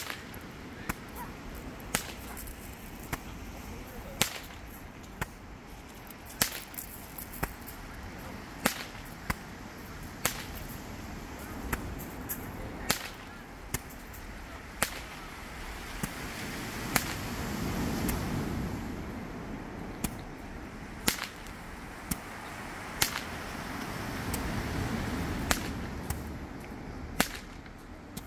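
Handheld Roman candle firing shots, a sharp pop about once a second, over the steady wash of surf on a pebble shore that swells up twice in the second half.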